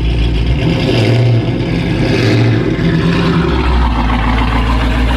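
A car engine with a loud exhaust running and revving lightly, a steady low rumble that rises and falls a little in pitch.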